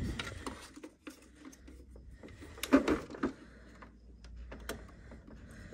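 Light clicks and taps of plastic as a flat ribbon cable is pushed into its connector on an HP Ink Tank printer's main board. There are a few sharp clicks about a second in, near three seconds and near five seconds, over a faint low hum.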